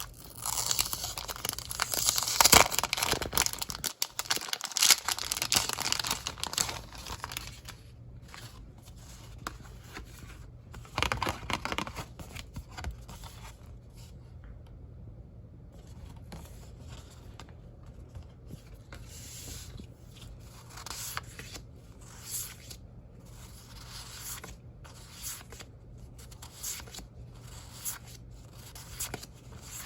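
Close-miked handling of planner sticker sheets and their paper and plastic packaging: loud crinkling and tearing for the first six or seven seconds, another burst about eleven seconds in, then softer rustles and light taps.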